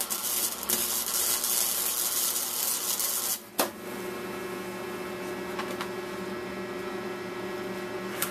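Stick (arc) welding on steel: the arc's crackling hiss runs for about three and a half seconds and then stops abruptly. After it a steady hum remains.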